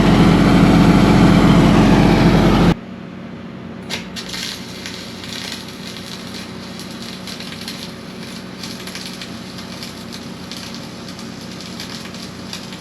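A loud steady machine hum that cuts off abruptly about three seconds in, followed by a quieter steady crackling of a wire-feed welding arc.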